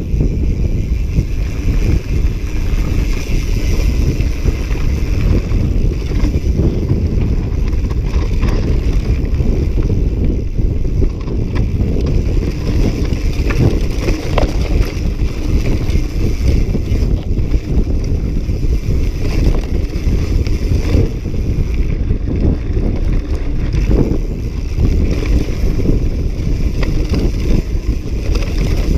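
Wind rushing over the microphone and the rumble of a mountain bike's tyres on a dirt and rocky trail, with short knocks and rattles from the bike over bumps.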